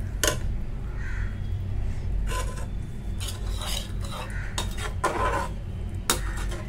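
A steel perforated skimmer stirring a watery tomato-onion gravy in a metal pan, scraping and clinking against the pan a handful of times at irregular intervals as freshly added water is mixed into the masala.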